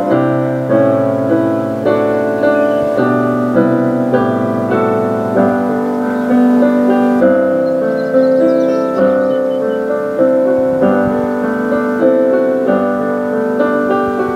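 Slow piano music, a new chord or note struck about once a second and left to ring down.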